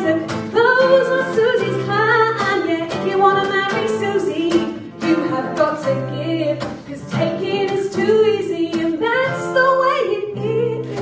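A woman singing into a microphone over a backing track with a steady beat and bass.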